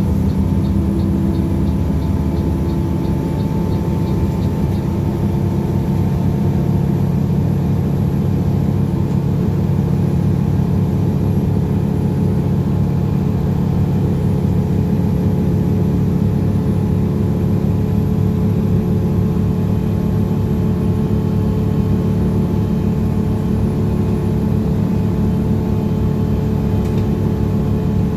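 Front-engined coach's diesel engine running steadily, heard from inside the passenger cabin with road noise underneath.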